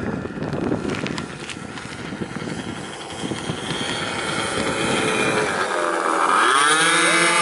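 The four OS 65AX two-stroke glow engines of a large RC C-5 Galaxy model buzzing as it flies low past, growing louder; their mixed pitches dip and climb back about two-thirds of the way through, then hold steady. A noisy low rumble fills the first few seconds.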